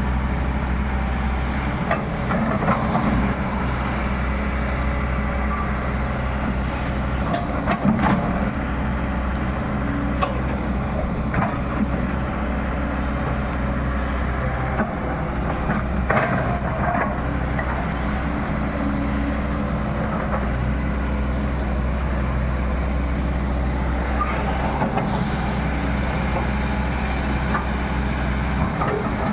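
Excavator's diesel engine running steadily under load, with a few short knocks and cracks scattered through.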